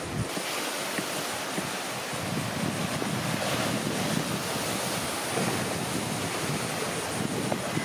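Sea surf washing steadily, with wind buffeting the microphone. A few faint taps of a knife on a plastic cutting board come through.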